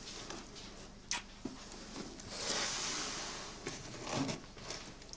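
Quiet room with faint rustling, a single soft click about a second in, and a soft swell of rustling in the middle.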